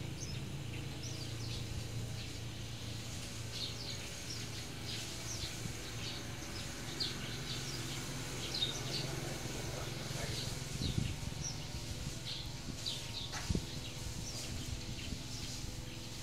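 Small birds chirping in the background, many short high chirps scattered throughout, over a steady low hum. Two short knocks come a couple of seconds apart past the middle.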